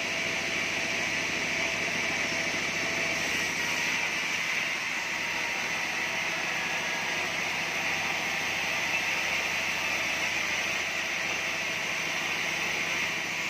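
Band sawmill running with a steady, even whirring hiss that does not change.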